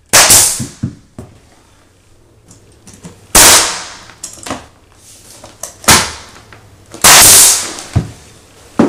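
Pneumatic nail gun firing nails into baseshoe trim: four sharp shots a few seconds apart, each with a short fading hiss, with small clicks and knocks of handling between them.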